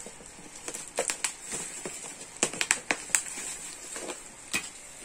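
Scissors snipping through bubble-wrap packaging, with the plastic crinkling: irregular sharp snips, coming quickest in the middle.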